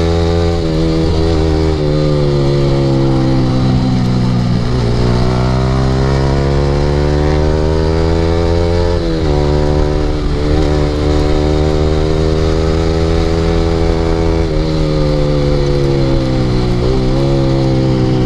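Yamaha R15 V3's single-cylinder engine through an Akrapovic aftermarket exhaust under way: the note climbs as the bike accelerates, drops suddenly about 4.5 and 9 seconds in, then slowly falls in pitch for the rest.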